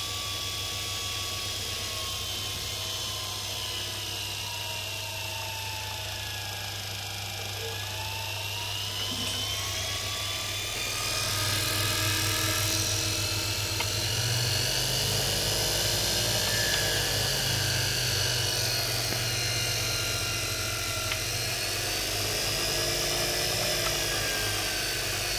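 Electric motor on a dynamo test bench spinning a Jawa/ČZ motorcycle dynamo, running with a whine over a steady low hum. The whine slides down in pitch, then rises and grows louder about eleven seconds in as the speed changes.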